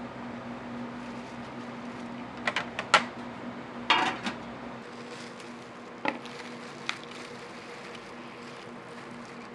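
Kitchen utensils and dishes clinking and clattering, with sharp strikes about 2.5, 3, 4, 6 and 7 seconds in; the one at about 4 seconds is the loudest and rings briefly. Under them runs a steady low hum.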